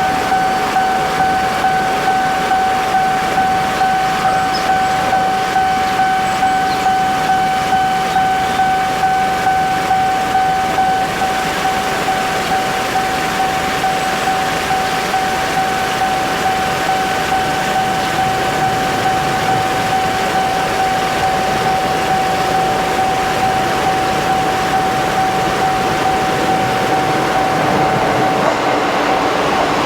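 Japanese level-crossing warning bell ringing a steady, rhythmic 'kan-kan' alarm, one high tone repeating. From about eleven seconds in, the rumbling rush of a train passing the crossing rises underneath the bell.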